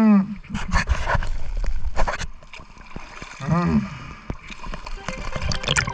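Water sloshing, splashing and gurgling around a skin diver in the sea, in irregular bursts. Two short pitched sounds that rise and then fall break through, one at the very start and one about three and a half seconds in.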